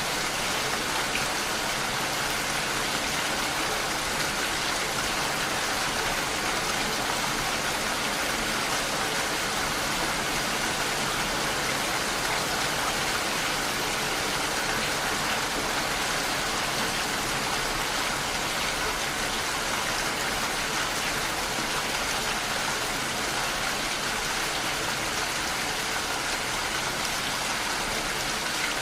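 Steady rain falling, an even hiss of drops on surfaces with no change in intensity.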